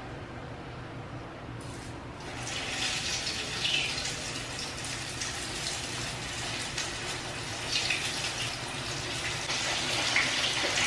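Water running steadily, starting about two seconds in.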